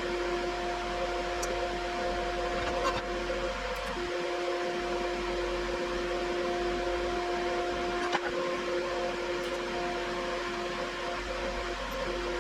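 TIG welder running: a steady electrical hum with a couple of fixed tones over a hiss. The hum dips briefly about three and a half seconds in, and there is a faint click about eight seconds in.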